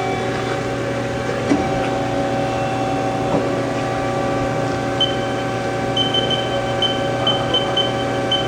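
Haas ST-10 CNC lathe running with a steady mechanical hum of several steady tones while its tailstock quill is moved, with a couple of light clicks. From about five seconds in, a high-pitched tone chirps on and off.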